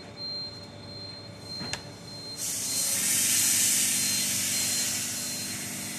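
A single sharp snip about a second and a half in, as scissors cut the edge of a freshly moulded rubber mat. A little after two seconds a loud steady hiss starts, with a low machine hum joining under it, and it eases off toward the end.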